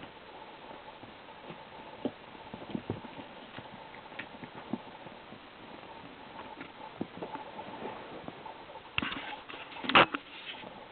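A kitten scampering and playing: scattered light taps and scuffs, with a louder clatter about nine seconds in.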